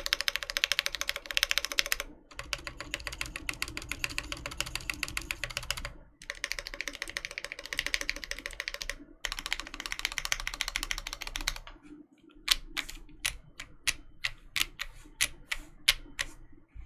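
Typing on a gasket-mounted Voice65 mechanical keyboard with lubed Alpaca linear switches, a PE plate, foam-filled case and Infinikey Hive keycaps. Fast runs of keystrokes give way, about twelve seconds in, to about a dozen slower, separate key presses.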